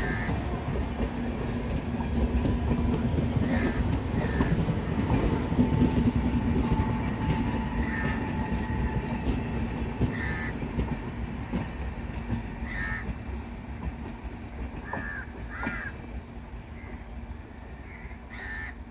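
Passenger coaches of an express train rolling past, their wheels rumbling and clattering over the rails, the sound fading in the second half as the rear generator car moves away. Crows caw several times over it.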